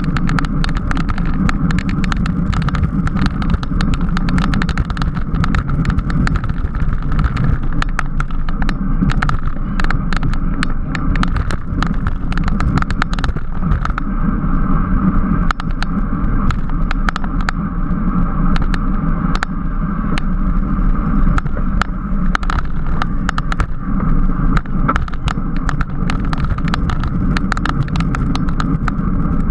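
Steady wind rush and road noise from a road bicycle ridden at speed, dotted with frequent crackling clicks.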